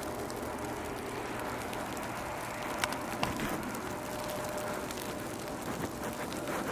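Steady low outdoor background hiss with a faint steady tone running through it, and two faint ticks about three seconds in.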